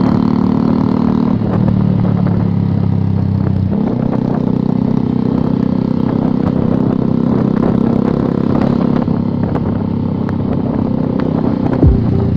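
Suzuki GSX-R150's single-cylinder engine running through an aftermarket CLD exhaust at fairly steady revs, its note shifting twice early on. A sharp thump comes near the end.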